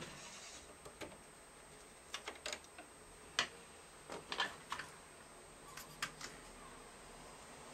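Scattered light clicks and taps, irregular and with no motor running, from hands handling a Riccar sewing machine around the needle and presser foot.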